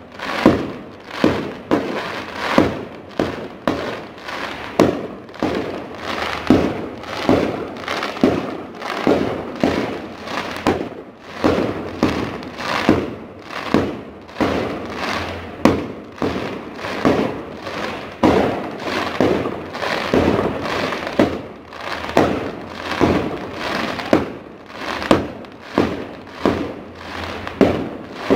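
Aerial fireworks going off in a steady barrage, about two bangs a second, each followed by a short crackling tail.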